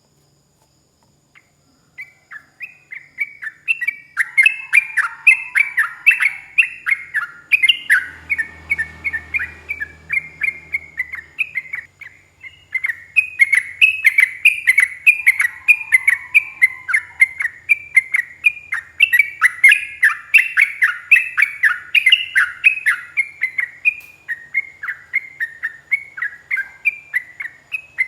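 Yellow-vented bulbul (trucuk) singing a long, fast rolling song of quick chirped notes. It starts about two seconds in and runs on with only a brief break near the middle.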